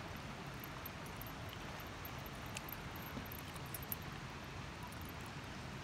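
Steady faint background hiss of open-air ambience, with no distinct splashes or other events.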